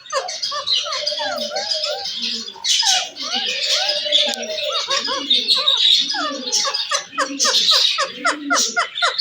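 Myna calling close by: a steady stream of varied squawks, whistles and chatter, quickening into a rapid run of repeated calls near the end, over the chirping of other caged birds.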